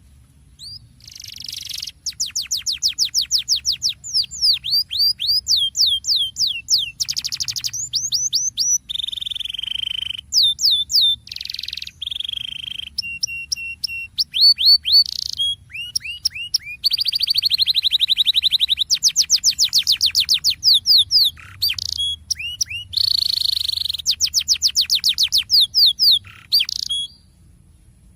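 Domestic canary singing a long rolling song. It runs phrase after phrase of fast trills of repeated sweeping notes, with a few held whistles in between and short gaps.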